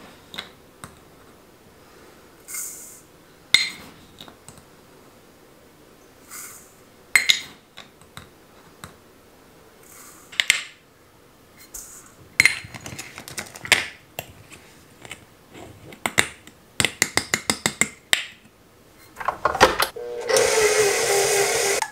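A metal measuring cup clinks and scrapes against glass jars and a steel mixing bowl as sugar is scooped in, with a quick run of light taps. Near the end a stand mixer switches on and runs steadily, creaming butter and sugar together.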